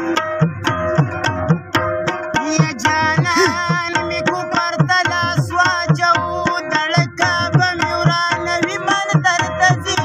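Pashto tappay music: tabla playing a steady beat, with gliding low strokes, under a melodic line.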